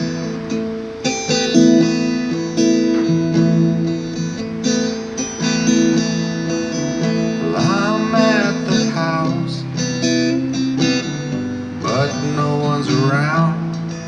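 Acoustic guitar strummed and picked, playing a song's instrumental introduction, joined about halfway through and again near the end by a second melodic line that slides up and down in pitch.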